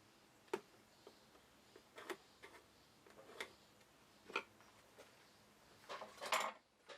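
Scattered light clicks and taps of small hand tools being picked up, set down and handled against a small wooden box while measuring and marking it, with a brief rustling scrape near the end.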